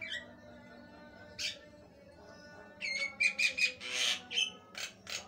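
Javan myna (jalak kebo) in full song: a short falling whistle at the start and a harsh squawk about a second and a half in. From about three seconds comes a quick run of clear whistled notes mixed with harsh rasping calls.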